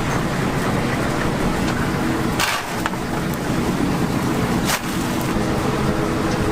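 Chicken deep-frying in a large vat of oil: a steady sizzle over a low hum, with two sharp knocks about two and a half and five seconds in.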